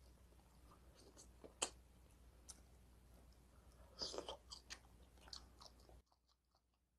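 Faint close-up eating sounds: a man chewing adobo squid and rice, with wet mouth clicks. There is a sharp click about one and a half seconds in and a louder bout of chewing about four seconds in. The sound drops to near silence near the end.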